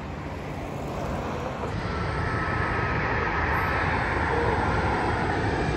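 Jet airliner approaching low on final with its landing gear down, its engine noise building steadily louder, with a faint high whine in the middle.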